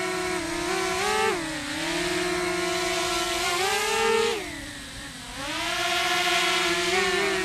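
DJI Mini 2 SE quadcopter's propellers and motors humming with a steady high-pitched buzz. The pitch dips briefly a little over a second in. About four seconds in, the pitch drops and the sound grows quieter as the drone swings past, then it comes back up to a steady hum.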